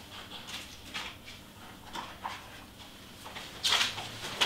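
Faint handling and rummaging noises: scattered soft clicks and rustles, with a louder rustle about three and a half seconds in, as supplies are searched for a replacement tape refill.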